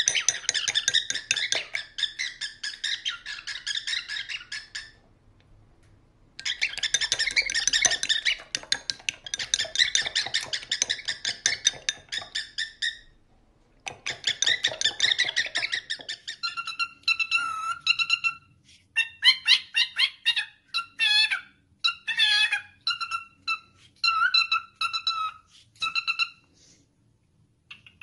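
Cockatiel vocalising: long stretches of rapid, dense chattering broken by two short pauses, then about halfway through a rhythmic run of short, clear whistled notes repeated at a few set pitches, like a mimicked tune.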